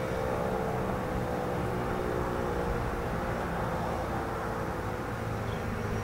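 American Signal T-128 tornado siren's tone fading out in the first second or so, leaving a steady outdoor rush of distant traffic.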